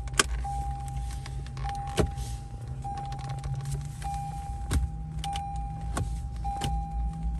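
A car's warning chime beeping steadily on and off, about one beep every 1.2 seconds. Over it come a few sharp clicks of plastic trim clips popping loose as an interior panel is pried off, above a low steady hum.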